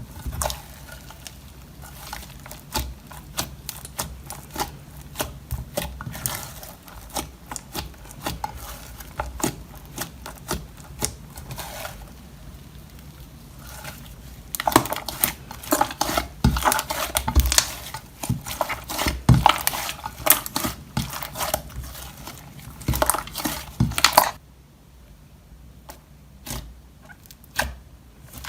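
Slime being squished and stretched by hand: a fast run of small sticky clicks and pops, louder and denser from about halfway, then dropping to a few scattered clicks near the end.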